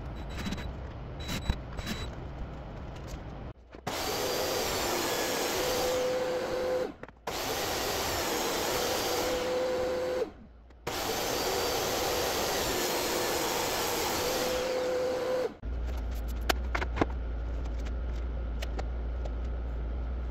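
DeWalt jobsite table saw running and cutting plywood, heard in three stretches of three to five seconds, each breaking off abruptly. A steady whine comes in toward the end of each stretch. After them, a low hum with a few light knocks.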